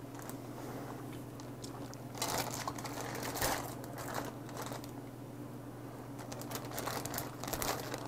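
Thin plastic bag crinkling and rustling in irregular bursts as a live octopus is pulled up out of it by hand, over a steady low hum.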